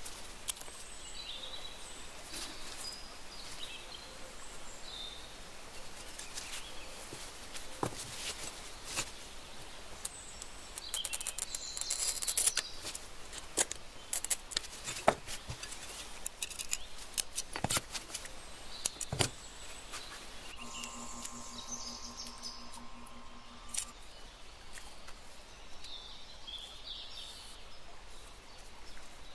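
Marker squeaking in short chirps as it is drawn over glass, with scattered clicks and taps of glass handled on the workbench, thickest a little before halfway. A brief steady hum sounds about two-thirds of the way through.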